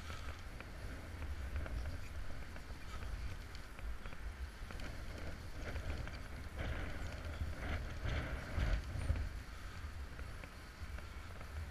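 Wind noise on a body-worn camera's microphone, a steady low rumble, with scattered small scrapes and clicks from the rappelling rope, descender and carabiners, busiest from about six to nine seconds in.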